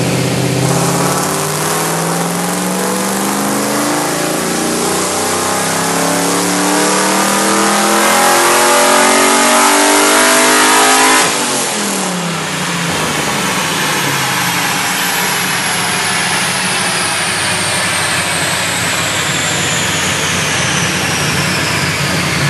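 Chevy V8 in a Subaru Impreza WRX making a full-throttle pull on a chassis dyno: the revs climb steadily for about eleven seconds. Then the throttle shuts suddenly and the engine and spinning wheels wind down with a long falling whine.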